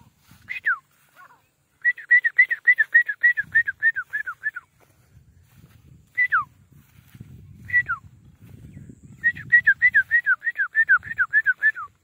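Francolin (teetar) calling with loud, clear whistles. Two fast runs of about a dozen down-slurred notes come about 2 s in and again about 9 s in, with single falling whistles in between. A faint low rumble runs beneath.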